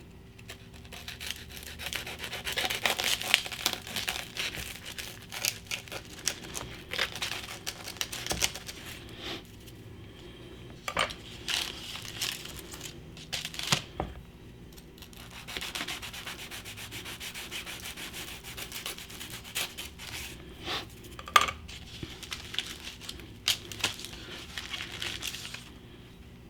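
A knife sawing through a toasted rye-bread grilled cheese sandwich, the crisp, buttered crust crunching and rasping in repeated strokes with short pauses. A few sharp clicks stand out, the loudest a little after the middle.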